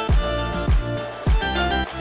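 Background music with a steady deep beat, about one beat every 0.6 seconds, under held melodic notes.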